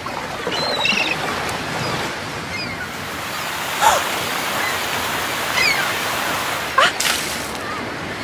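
Ocean surf sound effect: a steady wash of waves, with a few short rising whistles through it.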